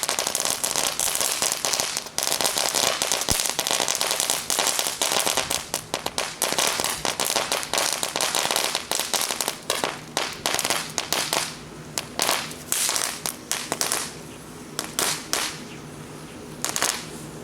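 Firecrackers going off in a rapid, dense string of cracking bangs that thins out to scattered single pops in the last third.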